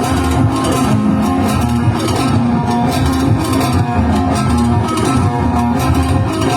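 Loud band music, with guitar and bass over a steady beat.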